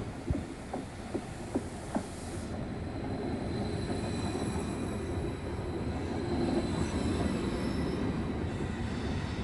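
WESTbahn double-deck electric multiple unit (Stadler KISS) rolling past alongside the platform. Its wheels click sharply over rail joints about twice a second for the first two seconds, then give way to a steady rolling rumble that grows louder as the cars go by, with a faint high whine above it.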